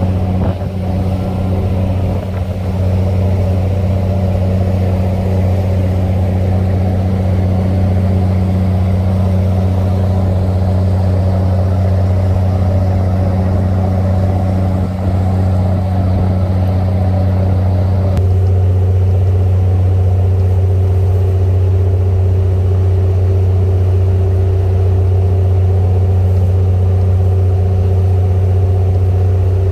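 Boat engine running steadily, a loud low drone with a slight change in its tone about two-thirds of the way through.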